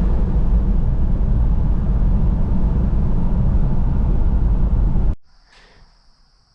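Steady low road and engine rumble inside a moving car. It cuts off abruptly about five seconds in to a quiet background with a steady high chirring of crickets.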